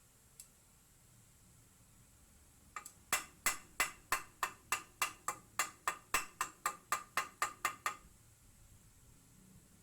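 A quick run of about sixteen sharp, evenly spaced knocks, roughly three a second, each ringing briefly, lasting about five seconds.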